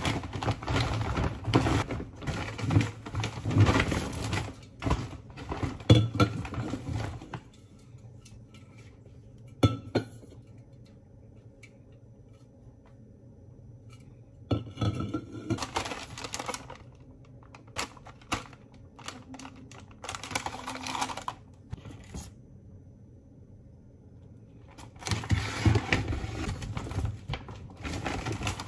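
Groceries being unpacked from a shopping bag onto a counter: the bag and plastic packaging rustling, with clinks and knocks as aluminium drink cans and a plastic egg carton are set down. The sounds come in several bursts, with quieter pauses and a few single clicks between them.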